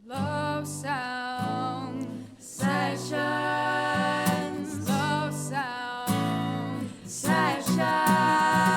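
Acoustic guitar playing a slow chord pattern, with a wordless sung melody over it in phrases of a second or two.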